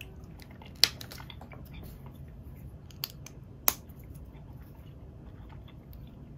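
CADA plastic building bricks being handled, with small ticks and three sharp plastic clicks, the loudest about a second in and the other two close together near the middle.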